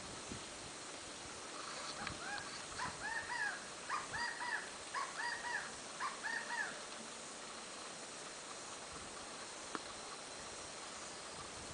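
Tui singing faintly: a run of repeated arching notes, each sung at two pitches at once, starting about two seconds in and stopping after about five seconds.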